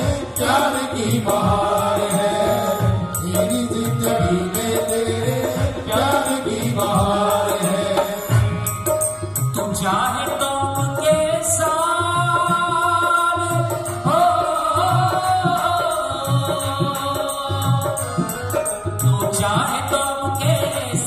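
Live qawwali: sung melodic lines with long held notes over a steady tabla beat.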